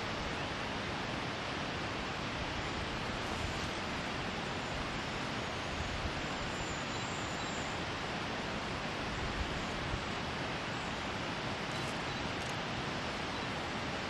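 Steady, even rushing hiss of outdoor background noise.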